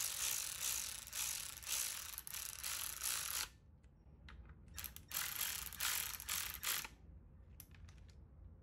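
Cordless electric ratchet driving bolts into a plastic timing-belt cover: one run of about three and a half seconds, a second run of about two seconds, then a few short blips of the trigger near the end.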